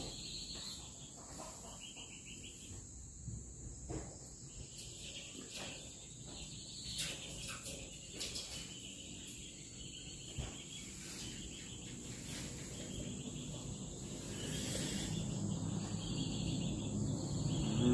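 Insects trilling steadily at a high pitch, with a few scattered light clicks and knocks; a low hum grows louder in the last third.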